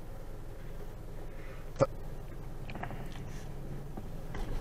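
Steady low hum inside a car's cabin in slow traffic, with one sharp click a little under two seconds in and a fainter tick about a second later.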